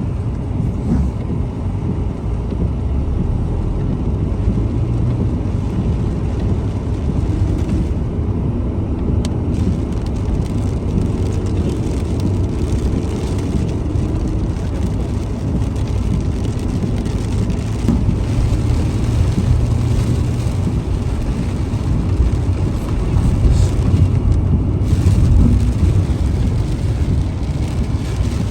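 Heavy rain falling steadily, heard as a dense, even noise that is strongest in the low range.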